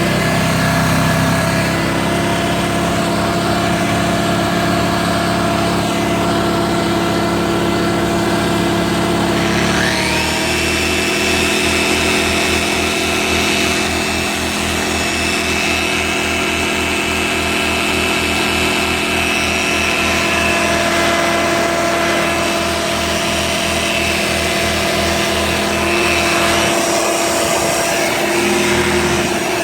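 Black Max BMi2100 portable generator engine running under heavy load, powering a vacuum and a Flex 3401 polisher together. About ten seconds in, a tool motor starts with a rising whine that settles into a steady high tone, and the engine's note changes as it takes the added load. Running both at once pushes the generator to its overload limit.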